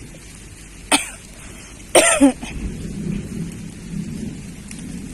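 Heavy storm rain falling steadily. A sharp knock comes about a second in and a person coughs loudly about two seconds in, followed by a low, uneven rumble, typical of thunder.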